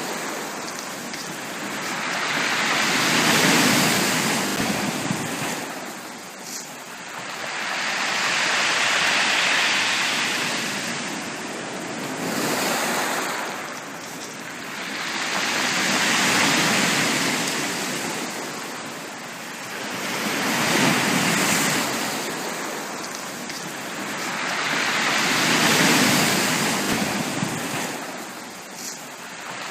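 Sea waves breaking on a beach and washing back, swelling and fading in a slow, steady rhythm about every five or six seconds.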